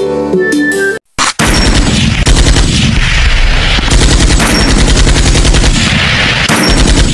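Rapid automatic gunfire, a sustained burst of about ten shots a second, pausing briefly near the end and starting again. Music cuts off abruptly about a second in, just before the firing begins.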